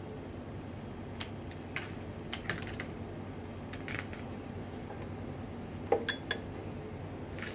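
Scissors snipping leaves off rose stems: scattered sharp clicks and snips. About six seconds in come a few louder knocks and clinks as a stem is put into a cut-glass vase, over a steady low hum.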